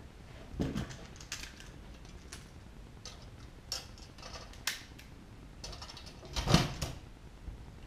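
Clicks and clunks of a hand pop-rivet tool being squeezed to set a blind rivet through a metal wing rib into its upright, with a louder crunch about six and a half seconds in.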